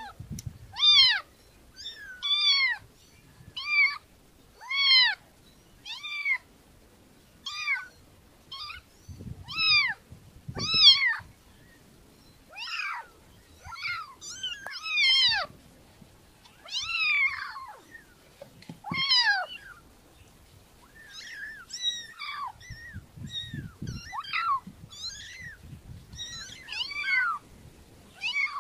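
Kitten meowing over and over: short, high-pitched meows, each rising a little and then falling, about one every second or so.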